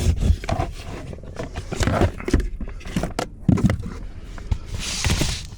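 Plastic scraping, knocking and clicking as an HVAC blower motor is worked loose and pulled out of its housing under a car's dashboard, with a short rustle near the end.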